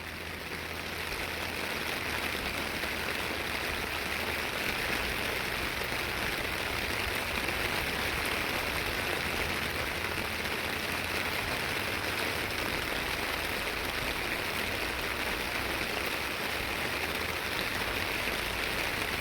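Steady rain falling, a dense even hiss that swells in over the first second or so and then holds.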